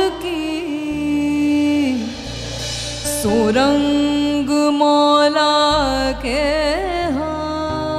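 Woman singing a Hindi devotional bhajan: one long melodic line with held notes, glides and fast wavering ornaments, over low sustained accompaniment notes that change every second or two.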